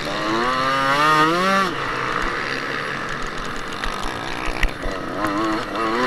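Kawasaki KX125 two-stroke motocross engine revving hard under acceleration. Its pitch climbs and wavers for about a second and a half, then drops away, and climbs again near the end. Wind rushes over the onboard microphone throughout.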